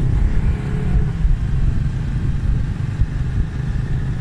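Steady low rumble of a moving road vehicle, with wind buffeting the microphone.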